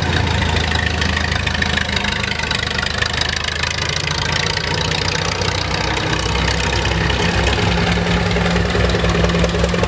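Vintage farm tractor engines running at low speed as tractors drive past one after another, a steady low engine note with a knocking beat. A second engine note grows louder near the end as the next tractor nears.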